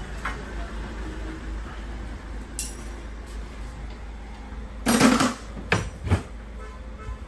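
A loud clattering knock with a clink about five seconds in, followed by two lighter knocks, over a steady low hum.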